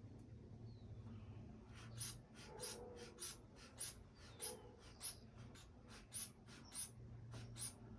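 Hand bulb of an aneroid sphygmomanometer squeezed and released over and over to inflate the blood pressure cuff, giving short airy puffs about three a second, strong and weak in turn. It starts about two seconds in and stops near the end, the cuff being pumped up for a palpatory pressure estimate.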